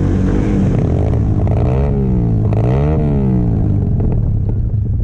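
Off-road vehicle engine revved up and let back down twice in quick succession, over a steady loud wind rumble on the microphone.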